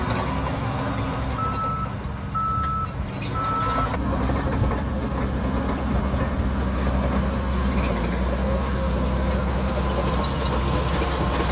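Shantui DH17C3 Pro bulldozer's diesel engine running steadily under work, with three short reversing-alarm beeps about a second apart starting about a second and a half in.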